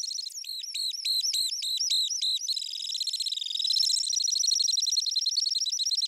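Temminck's stint singing: a run of high arched notes about three a second, which turns about two and a half seconds in into a long, fast, even trill.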